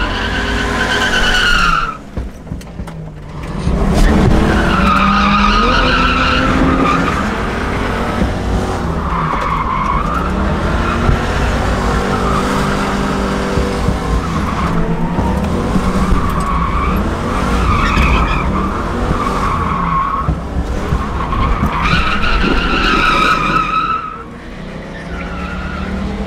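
Tyres squealing in long, wavering slides as a 1995 Mustang GT drifts, heard from inside the cabin over its 5.0 V8 revving up and down. The squeal and engine drop away briefly about two seconds in and again near the end.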